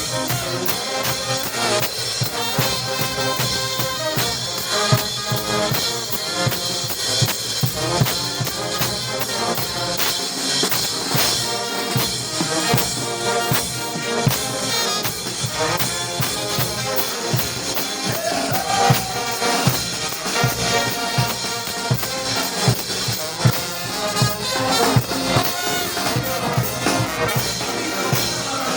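Brass band playing a lively tune: trumpets and trombones over a drum kit keeping a steady beat.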